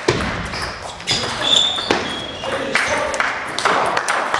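Table tennis rally: the ball clicks sharply off the rackets and the table in a quick back-and-forth, over the background noise of a large sports hall.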